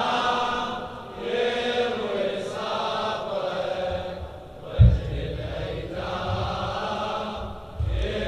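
Men's voices chanting the refrain of a Shia latmiya mourning lament together in a slow, drawn-out melody. A deep thump sounds twice, near the middle and near the end, about three seconds apart.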